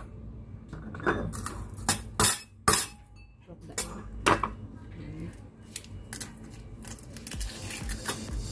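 Eggs being cracked on a stainless steel mixing bowl with a metal spoon in it: a series of sharp knocks and clinks of shell and spoon against the metal bowl.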